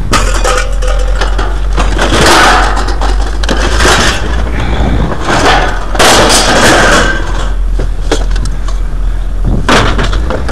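Household scrap being thrown down onto a scrap pile, clattering and crashing several times over a steady low rumble.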